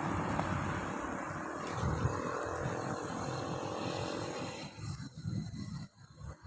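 A motor vehicle passing on the road, its engine and tyre noise steady and then fading away about four and a half seconds in, with wind gusting on the microphone.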